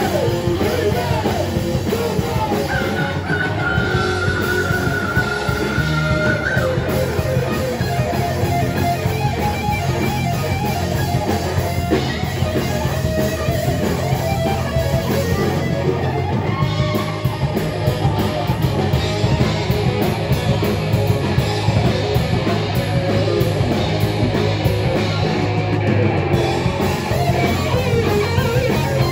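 Heavy metal band playing live through amplifiers: distorted electric guitars over bass and drum kit. A high note is held from about three seconds in until about seven.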